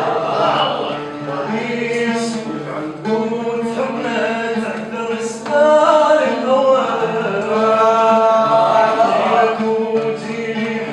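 Male voice singing an Arabic love song (ghazal) in long held, wavering notes.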